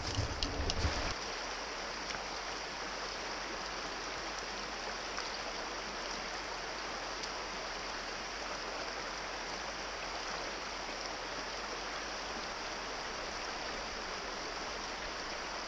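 A few knocks in the first second, then the steady rushing of a small rocky brook running over stones.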